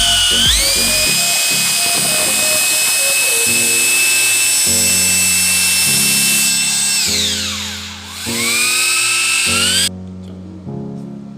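Bosch GBH 200 rotary hammer drill's electric motor running with no load. It spins up to a steady high whine, winds down about seven seconds in, then revs up again. Background music plays underneath.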